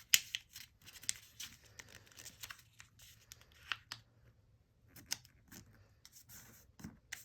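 Printer paper being folded and creased by hand: scattered sharp crackles and snaps with soft rustling in between, pausing briefly about halfway through.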